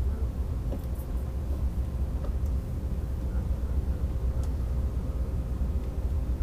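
Steady low rumble of an AVE Series 103 (Siemens Velaro) high-speed train running at speed, heard from inside the passenger cabin, with a faint steady hum and a few light clicks.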